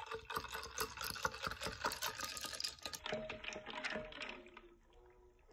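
A stirrer swirled through vinegar and popcorn kernels in a tall glass: rapid clicking and rattling of kernels and stirrer against the glass with sloshing liquid, dying away about four and a half seconds in.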